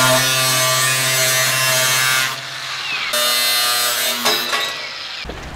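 Angle grinder grinding down a weld bead on the edge of a metal plate, a steady motor whine with a loud grinding hiss. It eases off about two seconds in, bears down again for a second or so, then fades and stops.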